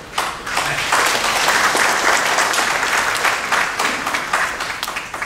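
Audience applauding in a hall: many hands clapping, starting just after the moment begins, at its fullest in the middle and thinning out toward the end.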